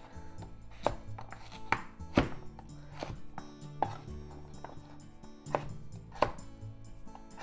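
Chef's knife cutting carrot into sticks on a wooden cutting board: separate sharp knocks of the blade striking the board, at uneven intervals of about a second, over background music.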